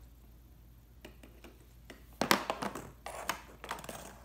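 Fidget spinners clicking and tapping against a plastic tabletop as a small child handles and spins them. A quick run of clicks starts about halfway through.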